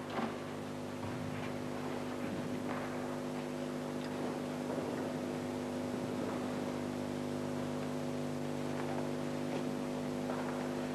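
Steady electrical hum with a buzzy stack of overtones, unchanging throughout, with only faint taps under it.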